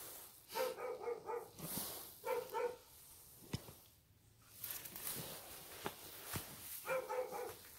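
Dog barking in short bursts: several barks in the first three seconds, then a pause, then another bark near the end.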